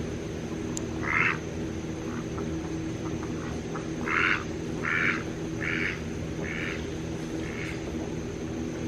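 Duck quacking: one quack about a second in, then a run of five quacks that fade away one after another.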